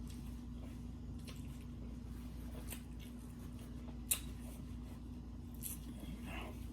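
Close-up mouth sounds of someone chewing a street taco: soft wet squishes and smacks, with one sharp click about four seconds in, over a steady low hum.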